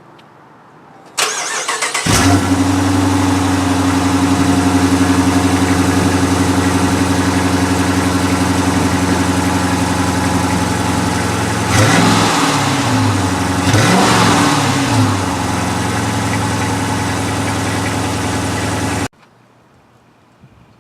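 2015 Dodge Challenger R/T's 5.7-litre Hemi V8 cranked by the starter, catching about two seconds in, then idling steadily. It is revved twice briefly in the middle, settles back to idle, and cuts off suddenly near the end.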